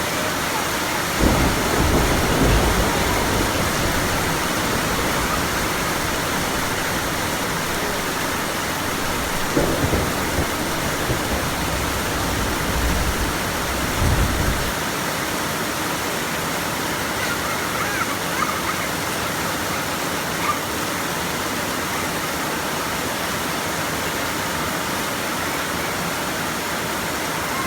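Heavy rain pouring steadily, an even hiss, with a few brief low rumbles near the start, about ten seconds in and about fourteen seconds in.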